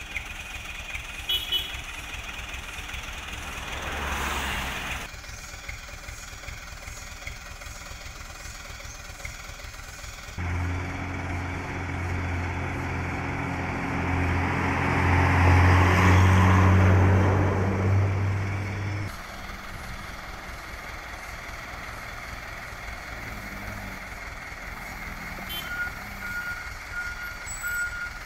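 Diesel trucks passing on the road. One heavy truck's engine drones loudly for several seconds in the middle, rising to its loudest and then cutting off abruptly. A short run of steady beeps follows near the end.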